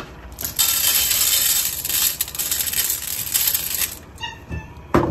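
Dry cat kibble being poured onto a round metal tray: a dense rattling patter of pellets on metal lasting about three seconds, then it stops.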